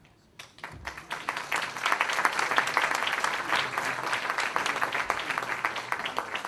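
Audience applauding: many people clapping, starting about half a second in, swelling within a second or so and beginning to die away near the end.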